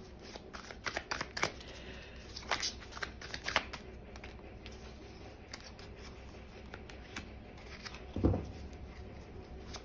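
Tarot cards shuffled by hand, with light flicking and riffling clicks, busiest in the first few seconds. A single soft thud comes about eight seconds in.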